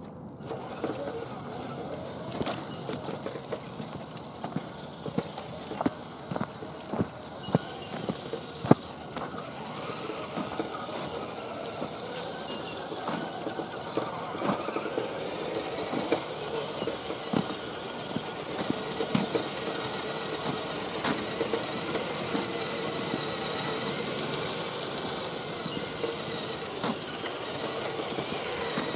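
Axial SCX10 radio-controlled crawler truck driving over a dirt trail: its electric motor and gears whine, with scattered clicks and knocks, most of them in the first ten seconds. A high hiss grows steadily louder from about halfway through.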